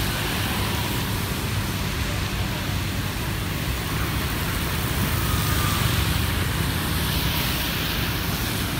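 Steady road traffic on a rain-wet city street: motor scooters and cars passing, with tyres hissing on the wet asphalt.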